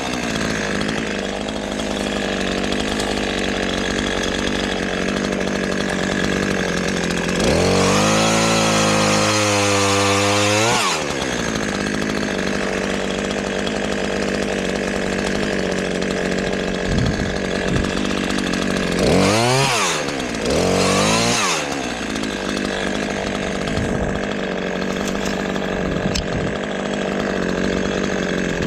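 Two-stroke chainsaw running hard while bucking sassafras windfall wood. Its engine pitch swings up and falls back once around eight to eleven seconds in, and twice more in quick succession around twenty seconds in, as the load on the chain changes.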